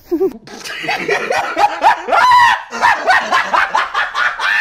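Several young men shouting, hooting and yelping at once in play, with overlapping high rising cries and a long held yell about halfway through.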